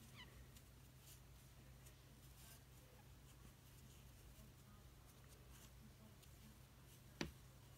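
Near silence: faint rustling of yarn being worked with a crochet hook over a low steady hum, with one short click near the end.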